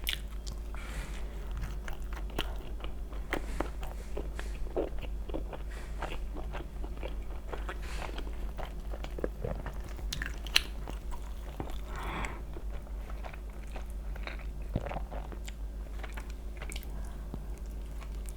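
Close-miked eating of sweet potato pizza: repeated bites and chewing with crunchy crust, many short crackly clicks scattered throughout, over a steady low hum.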